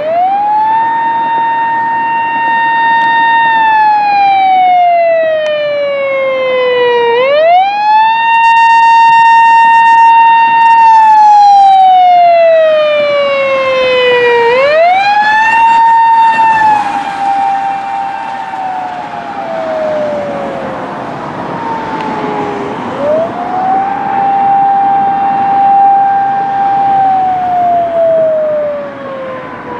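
Japanese police siren on a police accident-response vehicle on an emergency run: a wail that rises quickly, holds a high tone for about three seconds, then slides slowly down, repeating every seven to eight seconds. About halfway through, the held tone drops a little and more vehicle and road noise comes in.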